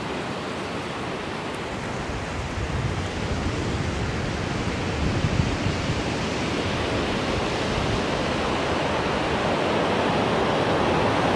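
Ocean surf washing onto a sandy beach, a steady rush that grows a little louder toward the end, with wind rumbling on the microphone for a few seconds in the middle.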